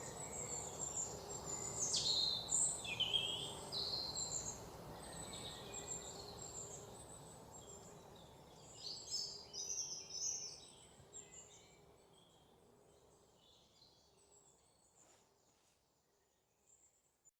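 Birds chirping and twittering in quick sweeping calls over a steady background hiss, the whole gradually fading out toward the end.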